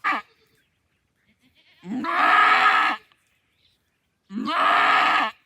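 A nanny goat bleating while she struggles to deliver a kid. There is a short falling cry right at the start, then two long, loud bleats of about a second each, a second and a half apart.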